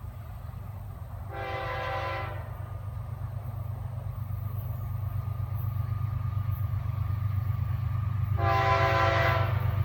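Air horn of an approaching Florida East Coast freight train's lead GE ES44C4 diesel locomotive, sounding two blasts of about a second each, several seconds apart, the second louder. Under the horn, the low rumble of the diesel engines grows steadily louder as the train nears.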